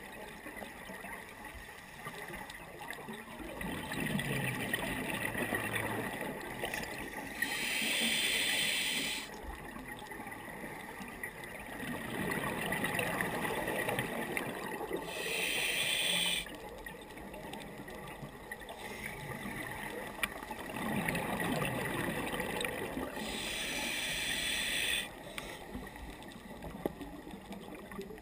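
Scuba diver breathing through a regulator underwater: three hissing inhalations about eight seconds apart, each lasting a second or two, with the bubbling gurgle of exhaled air in between.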